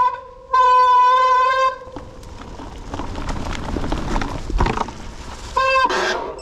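Mountain bike's hydraulic disc brakes squealing in a steady, unchanging tone: a blip at the start, a held squeal of over a second just after, and another short squeal near the end. In between, tyres roll over the dirt trail amid wind noise and small knocks from the bike.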